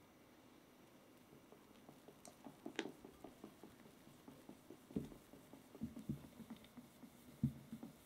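A spatula scoops cake batter into a glass bowl and stirs it, making soft wet squishing and light taps against the glass. A few louder knocks come in the second half.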